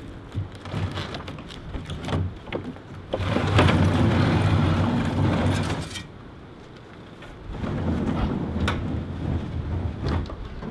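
Large old wooden barn door being shoved open sideways, rumbling and scraping in two long pushes, after a few knocks and clunks at the start.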